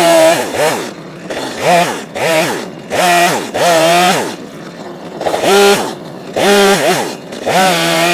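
Two-stroke chainsaw revved to full throttle and let back down over and over, about once a second.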